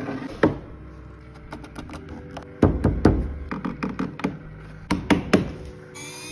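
Ash board knocking and clattering against the CNC router table as it is set in place by hand: a series of sharp wooden knocks and taps, the loudest about two and a half to three seconds in and a few more around five seconds.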